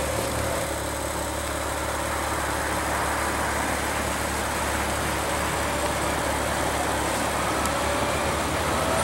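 Car engine idling steadily, with a faint tone that rises slightly near the end.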